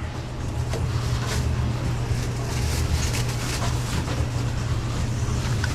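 Restaurant kitchen background: a steady low machine hum under an even hiss, with scattered light clicks and clatter.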